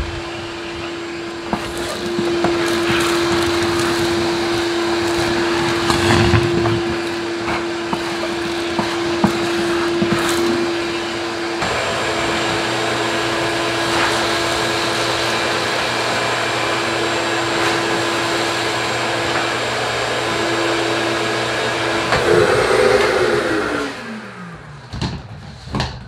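Ridgid NXT wet/dry shop vacuum running steadily with a constant hum and rushing suction through its hose, with occasional clicks as it picks up debris. About 22 seconds in it is switched off and the motor winds down with a falling whine, followed by a few light knocks.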